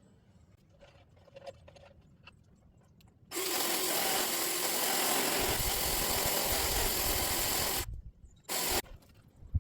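A power saw cutting into a tree's wood in a run of about four and a half seconds that starts and stops abruptly, followed by a brief second burst near the end.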